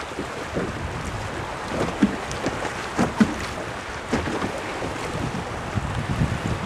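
Wind buffeting the microphone over the wash of sea waves, with a few short sharp knocks about two and three seconds in.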